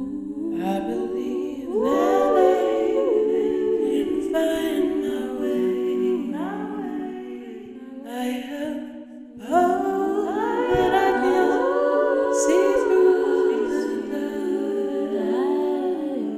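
Wordless a cappella singing: several layered voices hum in harmony, gliding up and down, with a brief lull about nine seconds in.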